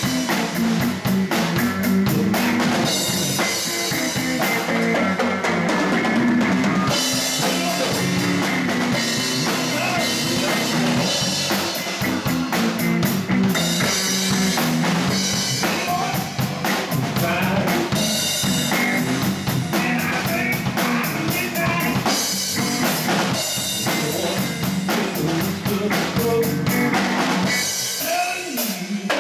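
Live blues band playing: a Ludwig drum kit with snare and bass drum prominent, over electric bass and guitar. Loudness dips briefly near the end.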